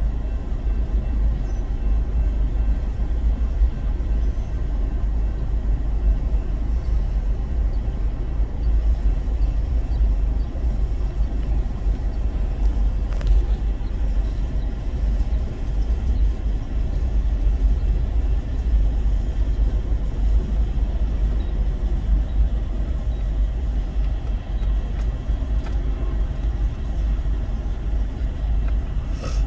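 Steady low rumble of a Union Pacific freight train's cars rolling past, heard from inside a car.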